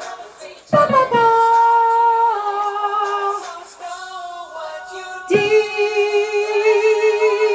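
A woman singing an alto part, holding long notes with vibrato; a new loud held note starts about five seconds in.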